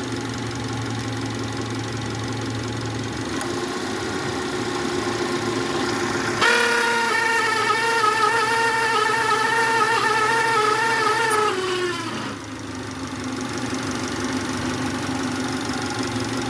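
2011 Subaru Legacy engine idling. About six seconds in, a loud steady whine with several overtones starts suddenly, holds for about five seconds, then sags in pitch and cuts off. This is the noise being checked from the A/C compressor, which is said to be running at high pressure.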